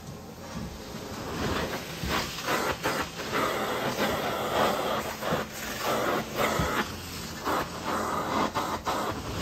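Truck-mounted carpet cleaning machine's extraction wand doing hot water extraction: a loud, steady suction hiss that swells and dips over and over as the wand head is drawn across the carpet.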